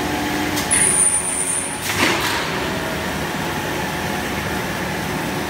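Steady machinery noise of a plastic pipe production line running. A thin high whine sounds for about a second, starting just under a second in, and a short hiss comes about two seconds in.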